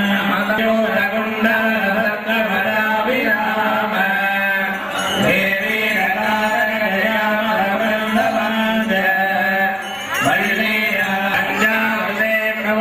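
Devotional chanting by many voices together, over a steady drone.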